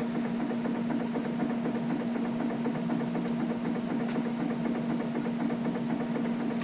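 A steady machine hum, with one constant even tone over a busy low rattle, unchanged throughout. A faint small click comes about four seconds in.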